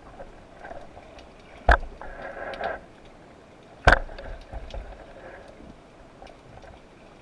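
Underwater sound: two sharp knocks about two seconds apart, the first followed by a short rush of bubbling noise, over faint scattered crackling.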